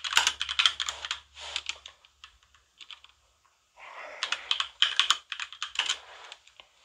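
Typing on a computer keyboard in quick bursts of key clicks, with a pause of about two seconds in the middle broken only by a few single taps.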